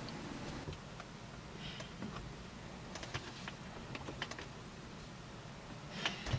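Low background hiss with scattered faint light clicks and taps, and a slightly louder cluster of clicks near the end.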